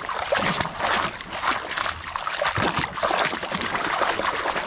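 Muddy water splashing and sloshing in a plastic basin as a plastic toy dump truck is scrubbed back and forth by hand, with many quick splashes throughout.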